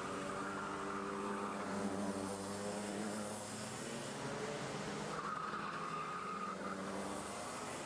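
Several two-stroke racing kart engines running on the track, their notes overlapping in a steady drone.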